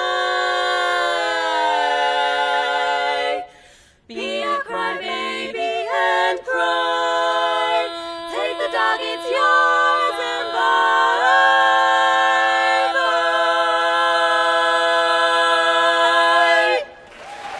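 Women's barbershop quartet singing a cappella in close four-part harmony. They hold a chord, break briefly, sing moving lines, then sustain a long final chord for about five seconds and cut it off together. Applause starts right at the end.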